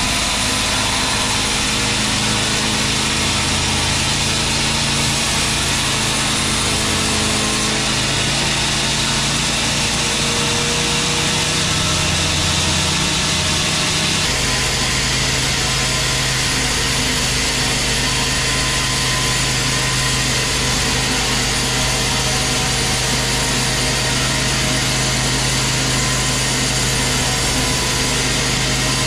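Sawmill band saw running and cutting lengthwise through a large teak log, a loud, steady mechanical noise of the blade in the wood and its motor. The sound changes abruptly about halfway through.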